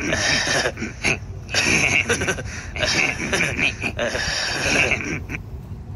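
A person's breathy vocal sounds in about five bursts, loud and close, stopping a little over five seconds in.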